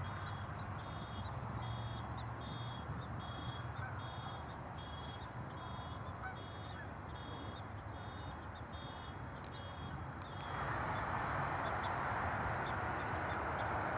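Prairie dog alarm calls: a high, even call repeated about twice a second while a bald eagle is on the ground among them. The calls stop about ten seconds in, and a louder rushing noise takes over, over a steady low hum.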